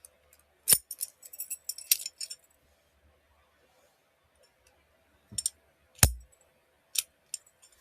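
A steel padlock and its key being worked by hand: scattered sharp metallic clicks and clinks from the key, shackle and body. The loudest is a heavier clack with a dull thump about six seconds in.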